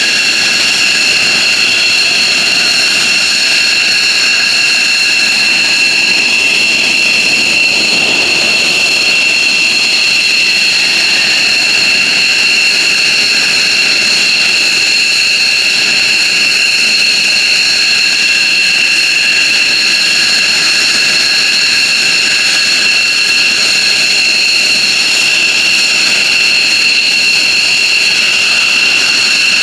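F-15J Eagle's twin F100 turbofan jet engines running on the ground with a loud, steady high-pitched whine over a rushing exhaust noise.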